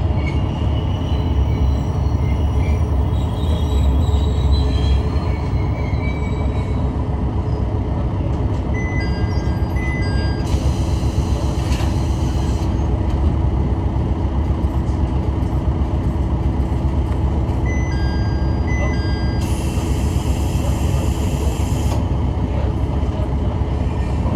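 Kishu Railway diesel railcar running along the track: a steady rumble of wheels on rail under the hum of the car. Twice a level-crossing warning bell rings briefly as the car passes, each time followed by a couple of seconds of hiss.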